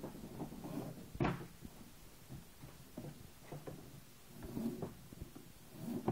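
Scattered knocks and clunks of hands working on a steel-framed, netted creel, with softer tapping and rustling in between. The loudest is one sharp knock about a second in.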